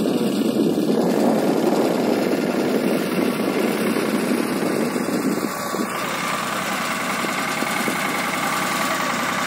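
Farm tractor's diesel engine running steadily as it drives with a loaded-trolley hitch, the sound shifting about six seconds in.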